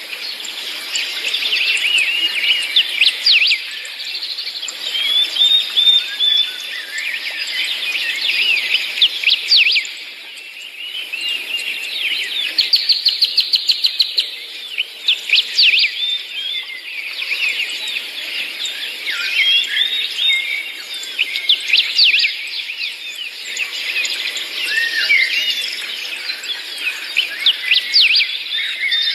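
Many small songbirds chirping and twittering at once, with short sweeping notes overlapping continuously. About halfway through, one bird gives a quick run of evenly spaced notes.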